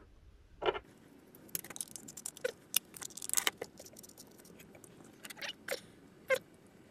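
A clear plastic jar and its lid being handled while a metal hose fitting is worked into the lid. It makes a run of small clicks and knocks, thickest from about one and a half to three and a half seconds in, then a few single taps.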